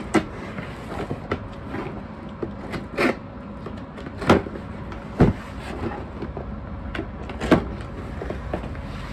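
Folding pocket knife slicing through packing tape on a cardboard shipping box, then the cardboard flaps being pulled open, with a handful of sharp scrapes and knocks scattered through.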